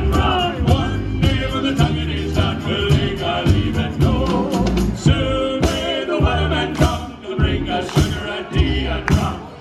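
Loud music with singing and a choir over a steady drum beat.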